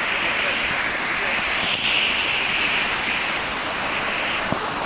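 Waterfall: falling water rushing in a steady hiss.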